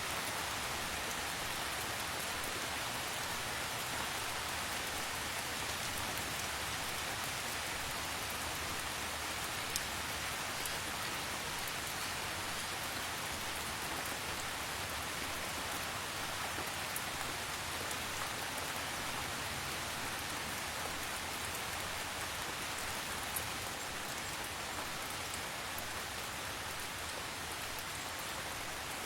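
Steady, calm rain falling: an even hiss of rain on surfaces, with a few single drops standing out now and then.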